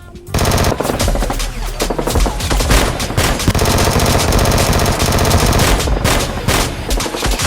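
Rapid automatic gunfire, a machine-gun burst that starts suddenly a moment in and keeps going as a steady stream of shots.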